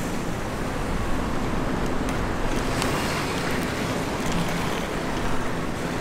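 Inline skate wheels rolling over city street pavement: a steady rushing noise with scattered light clicks and a faint, steady low hum underneath.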